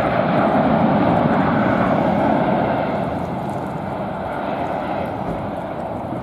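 Jet engines of a three-engined McDonnell Douglas freighter running as it rolls along the runway: a steady rushing noise that eases a little about halfway through.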